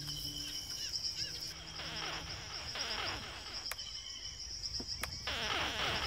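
Amplified recording of Arrau river turtle (giant South American river turtle) calls: a rapid series of short, falling chirps that grows denser and louder about five seconds in, over a steady high insect-like whine.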